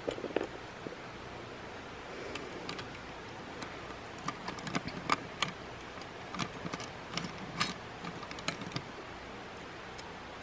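Small metal clicks and clinks of a bolt, nuts and a metal mounting bracket being handled and fitted against an aluminium ladder rail, coming in irregular clusters.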